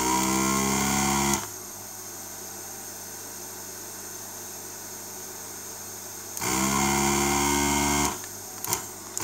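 Desoldering iron's vacuum pump running in two bursts of about a second and a half each, a steady motor drone with a hiss of sucked air, pulling melted solder off a capacitor's leads. A low steady hum lies between the bursts, and a few light clicks come near the end.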